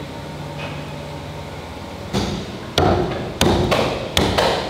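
A heavy butcher's cleaver chopping raw bone-in mutton on a thick wooden chopping block. About six hard, uneven chops start about two seconds in.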